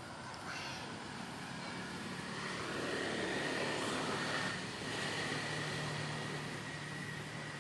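A motor vehicle passing, its engine noise swelling to a peak midway and then easing off, with a low steady engine hum in the second half.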